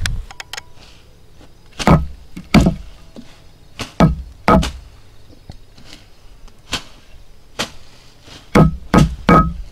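A series of loud, irregular knocks, about nine, some coming in quick pairs and threes, each with a short ring.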